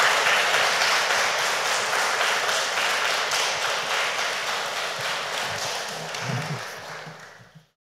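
Audience applauding, many hands clapping together, slowly dying down and cutting off near the end.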